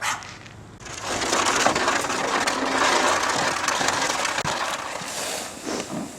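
A loud, steady crunching scrape of something moving through snow, starting suddenly about a second in and easing off near the end. A short sharp sound comes at the very start and two more near the end.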